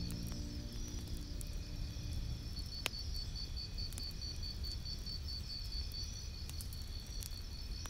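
Crickets chirping in a steady, evenly pulsing trill over a faint low rumble, with one sharp click about three seconds in. The last notes of soft music fade out at the very start.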